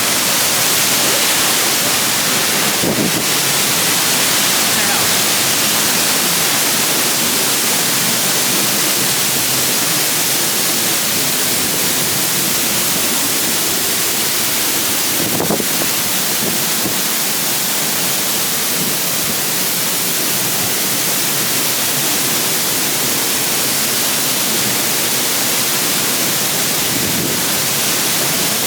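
Waterfall rushing steadily close by, an even wash of falling water, with two brief knocks about three seconds in and midway.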